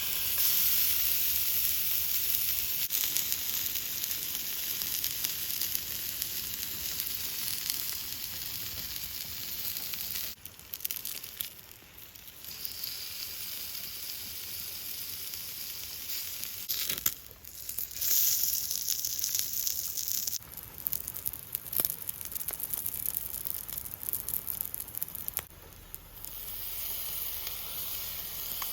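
Food sizzling on a small iron griddle plate. The sizzle is loud and steady, dipping briefly several times before picking up again.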